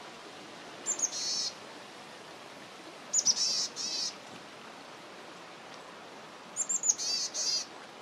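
Boreal chickadee giving its raspy call three times, each a short high note followed by a quick run of lower notes, over a steady background hiss.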